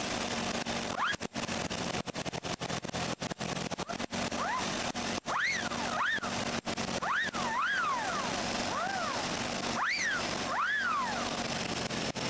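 Vacuum-driven Hollywood wolf whistle, its little propeller spun by engine vacuum as the cable is pulled. It gives a run of about nine short whistles, each swooping up and then down, several in quick pairs. Under them runs the steady idle of the Jeep Comanche's engine.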